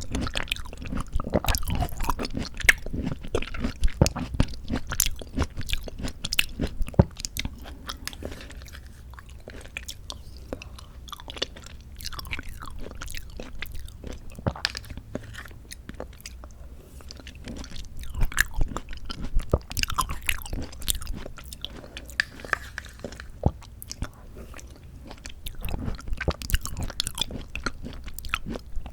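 Close-miked chewing and biting of canned mandarin orange segments from a fruit cup: a dense patter of mouth clicks and smacks coming in bursts, with quieter stretches between.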